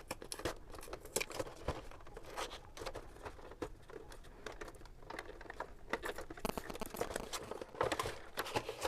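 Headphone box packaging being torn open and handled: irregular crinkling, tearing and crackling of paper and plastic, busier in the second half.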